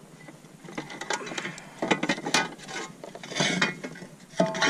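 Hard gear being handled against the side of a plastic fishing kayak: clattering, knocking and scraping in several bursts, starting about a second in.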